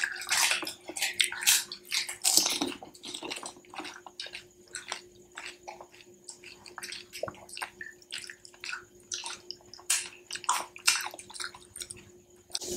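Pani puri eating up close: crisp puri shells dunked into a bowl of spiced water with splashing and dripping, then crunched and chewed, a string of many short crackles and clicks.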